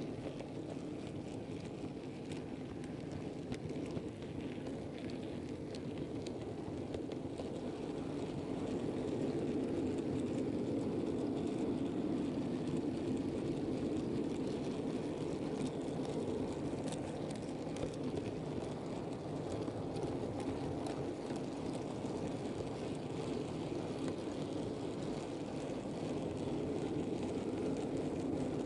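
Model railway goods wagons rolling along the track, heard from a camera riding on the train: a steady rumble with faint clicks, growing a little louder about eight seconds in.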